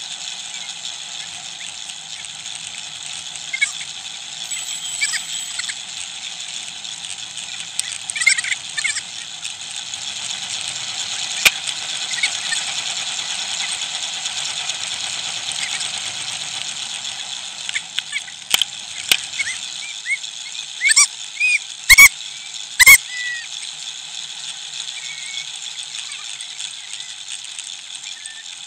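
Steady rushing hiss of a bicycle ride, wind and tyres on the microphone, with short squeaks now and then and a few sharp loud knocks about three quarters of the way through.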